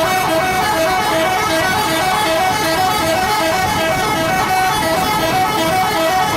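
Indonesian 'telolet' multi-tone bus horn on a PO Haryanto bus playing a quick repeating tune of short notes, several a second, loud and steady.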